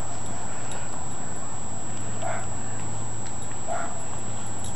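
Chesapeake Bay Retriever puppy giving two short high yips, about two and three and a half seconds in, while it bites at a push broom, over a steady rushing noise.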